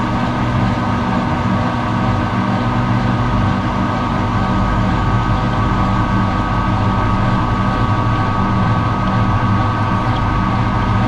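Metal lathe running steadily while drilling out a steel spacer, its motor and gearing giving a steady low hum with a higher whine above it.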